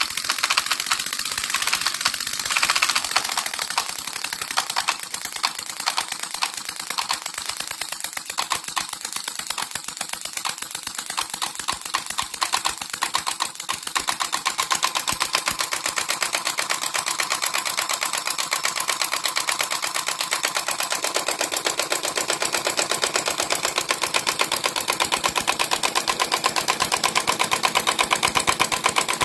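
Model single-cylinder, air-cooled open-crank four-stroke engine of 24 mm bore and stroke running steadily, with a fast, even clatter of firing beats and valve gear. About halfway through, a steady whine joins the clatter.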